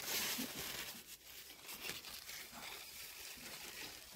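Large butternut squash leaves and vines rustling and crinkling as hands push through them, loudest in the first second.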